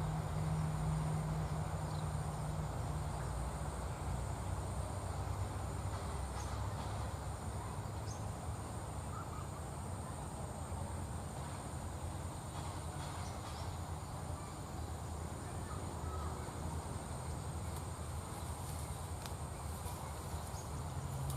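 Rural outdoor ambience: a steady high insect drone over a background hiss, with a low hum that fades after the first couple of seconds and comes back near the end.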